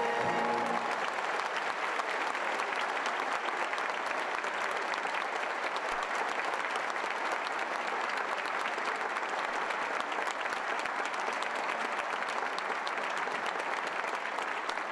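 A large audience applauding, with the orchestra's final chord dying away in the first second.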